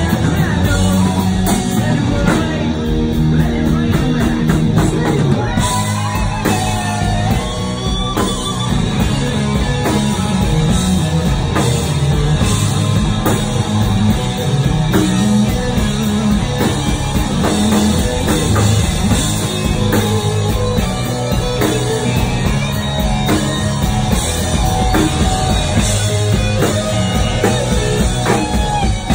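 Live hard rock band playing loud: electric guitars, electric bass and a drum kit through the club PA, heard from the crowd.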